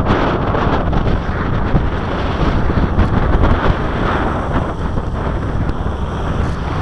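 Wind buffeting the microphone in a steady rush, over the running of a fire tanker's engine and pump and the hiss of a hose jet spraying water onto burning ground.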